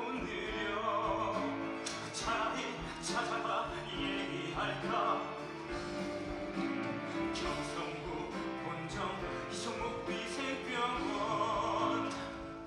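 Musical theatre song: a voice singing over instrumental accompaniment.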